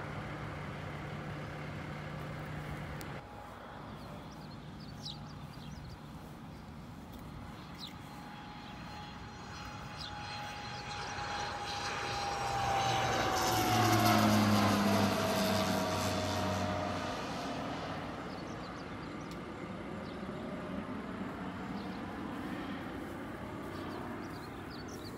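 Low-flying airplane passing overhead: its engine grows louder to a peak about fourteen seconds in, the pitch dropping as it goes by, then fades away.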